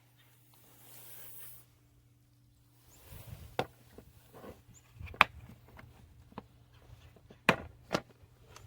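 Objects being handled: a few scattered sharp knocks and clicks, starting about three seconds in, with two close together near the end.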